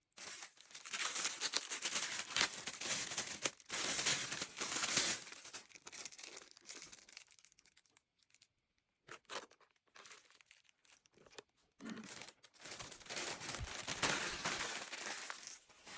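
Plastic packaging being handled and torn open: long spells of crinkling and tearing, broken in the middle by a quieter few seconds of scattered rustles and clicks.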